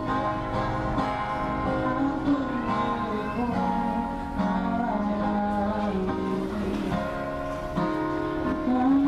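Live music: an acoustic guitar strummed with a singer's voice over it.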